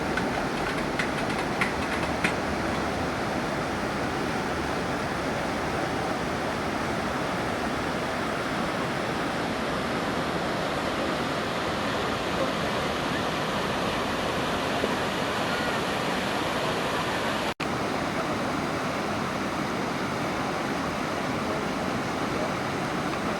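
Steady rushing of water, with a brief cut about two-thirds of the way through.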